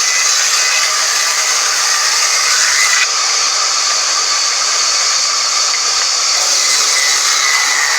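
Band sawmill running steadily, a loud unbroken high-pitched whir and hiss.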